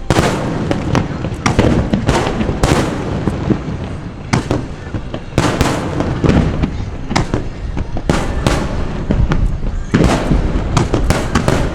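Aerial fireworks bursting in a dense finale barrage: one sharp bang after another with no pause, each echoing away. The loudest shells go off about two and a half, five and a half, eight and a half and ten seconds in.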